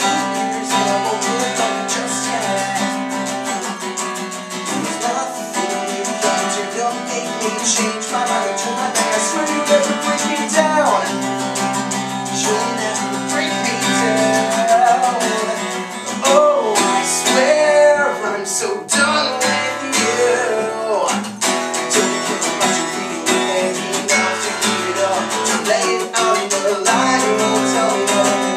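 Acoustic guitar strummed while a man sings a song over it.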